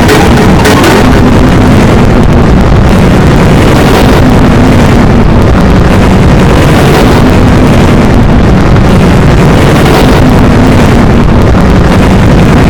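A dense, heavily distorted wall of layered electronic sound, clipped at full level, made of ringtone, alarm and notification sounds stacked on top of each other until they blur into a noise-like roar with a steady low hum underneath.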